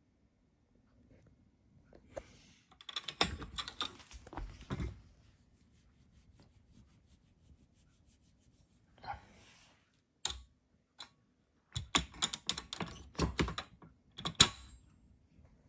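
Wire door of a plastic pet carrier rattling against its frame, with its latch clicking, in two bouts of clatter as the door is opened and later shut; the sharpest click comes near the end as the latch catches.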